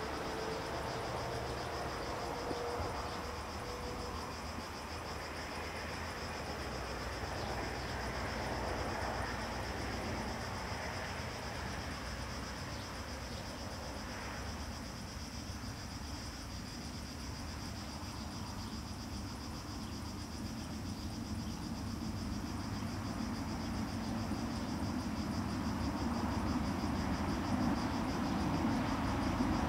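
Steady high-pitched insect chirring from the summer vegetation, with a low rumble underneath and a faint whine fading out in the first few seconds.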